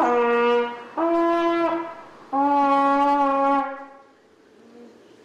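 A brass instrument played by a young player: three long held notes, each about a second, the second higher than the other two, then it stops about two-thirds of the way through.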